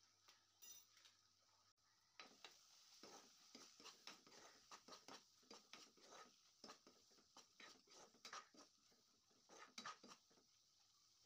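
Faint scraping and soft clacking of a spatula stirring thick, oily masala around a nonstick kadai, irregular strokes several a second, starting about two seconds in.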